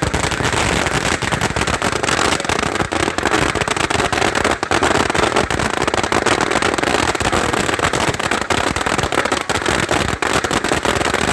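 A dense, unbroken barrage of firecracker and firework bangs with crackle, many reports a second.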